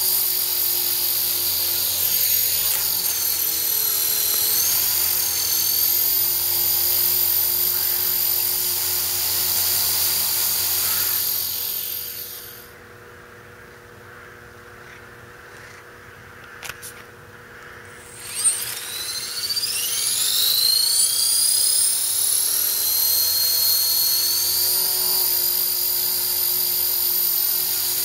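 EXI 450 Pro electric RC helicopter's brushless motor and rotors running at speed with a steady high whine. About 11 seconds in, it spools down to a stop. After a few seconds broken by a couple of small clicks and a sharp knock, it spools back up, the whine rising in pitch and then holding steady.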